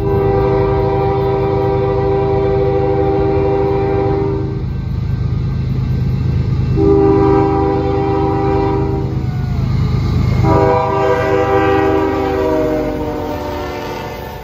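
Air horn of CN's GE ES44DC diesel locomotive 2266, leading a freight train, sounding three long blasts. The third blast is lower in pitch as the locomotive passes. Underneath is the low rumble of the diesel engines, which eases after the lead units go by.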